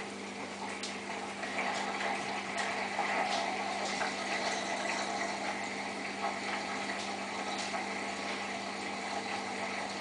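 Samsung WF8804RPA front-loading washing machine in its intermediate 550 rpm spin, drum spinning steadily with a constant motor hum and a few faint clicks. The spin runs without a suds lock.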